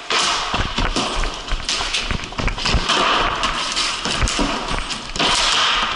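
Floor hockey play on a concrete floor: a quick, irregular run of hockey sticks clacking and scraping on the concrete, ball or puck hits and shoes scuffing, with taps and thuds throughout.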